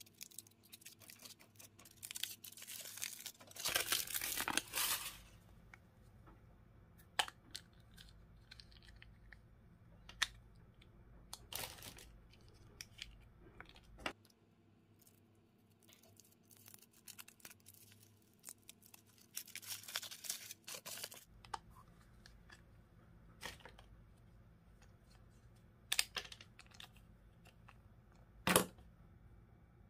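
Foil wrapper of a chocolate surprise egg crinkling and tearing as it is peeled off, in several bursts. Between the bursts come scattered sharp clicks and taps as small plastic toy capsules are handled and set on the table.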